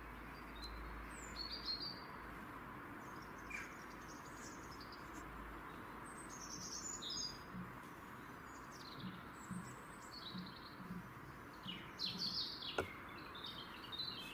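Birds chirping in short, scattered calls over a steady background hiss.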